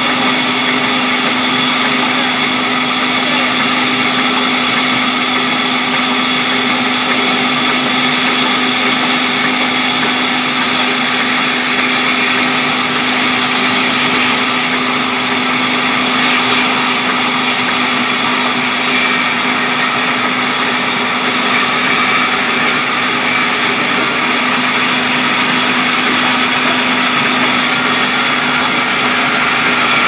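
Large belt-driven sawmill band saw running steadily while sawing through a thick mahogany slab: a constant hum with an even hiss of the blade in the wood, unchanging throughout.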